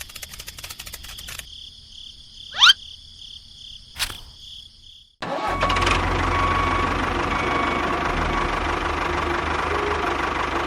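An engine running steadily from about five seconds in, with a low hum under it. Before that come rapid ticking over a high whine, a quick rising whistle and a single knock.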